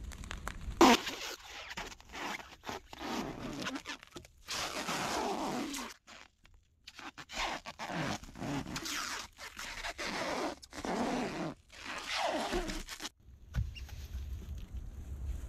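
Clear plastic stretch wrap being pulled off its roll and wound around a wooden frame: a series of crackling, zip-like pulls about a second long with short pauses between, and a sharp crack about a second in.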